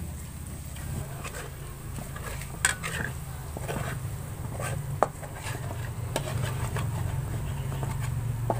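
A metal spatula scraping and stirring around a large metal wok as latik (coconut curds) fries in rendered coconut oil, with some sizzling. There are two sharper clanks of the spatula on the pan, about a third and just over halfway through, over a low steady hum.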